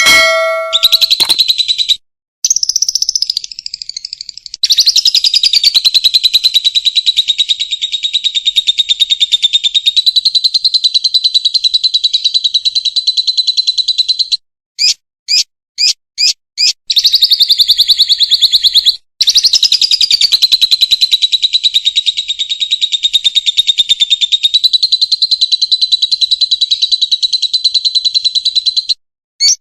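Lovebird 'ngekek': a loud, very rapid chattering trill held for about ten seconds at a stretch, twice, with a few short separate chirps in between.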